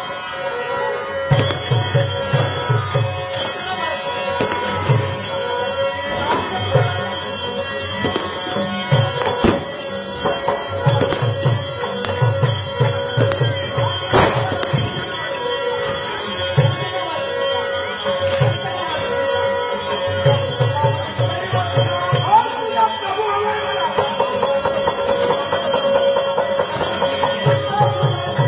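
Traditional live accompaniment for Dashavatar folk theatre: a steady held note, a drum played in quick runs of low strokes, and jingling percussion.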